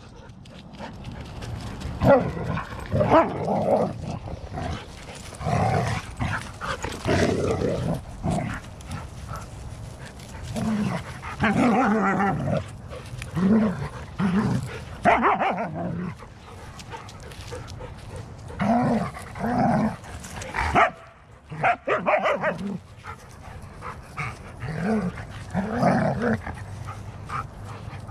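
Dogs barking and yipping while they play-fight, in repeated clusters of short calls with brief lulls between them.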